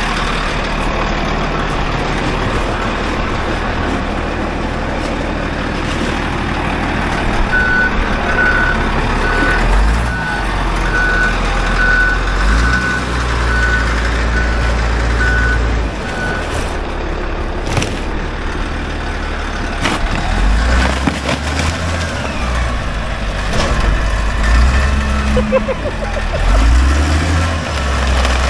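Cat 815 padfoot compactor's diesel engine running, with its backup alarm beeping about once a second for several seconds partway through. In the second half a few sharp cracks as the steel padfoot wheels crush a discarded sheet-metal appliance.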